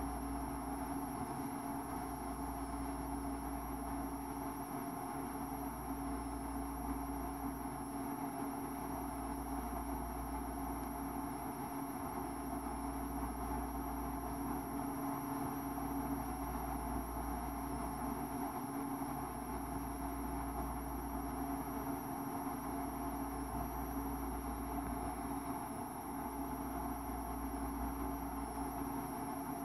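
A steady background hum with a faint high whine; its deepest rumble drops out briefly about every three and a half seconds.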